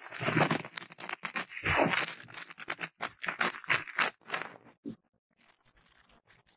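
Ear-cleaning tool scratching and scraping close against the left ear of an ASMR microphone, in quick strokes that thin out and stop about five seconds in.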